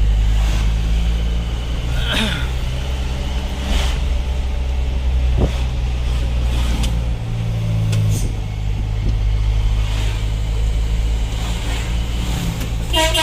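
Loaded truck's engine running steadily on the road, with a few short knocks or rattles over the hum. The engine note shifts briefly about seven seconds in.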